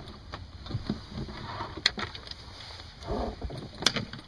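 Folding grapnel anchor and its chain being handled at a boat's gunwale and lowered over the side, with low knocks and two sharp clinks about two seconds apart.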